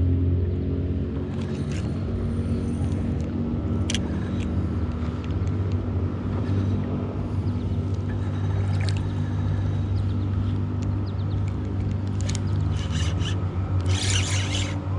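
A small motor running with a steady low hum, with a few faint clicks over it.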